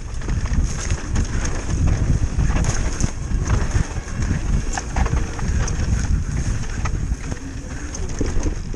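Wind buffeting the microphone of a mountain bike's onboard camera on a downhill run, with the tyres on loose dry dirt and the bike rattling in many sharp clicks and knocks over the rough trail.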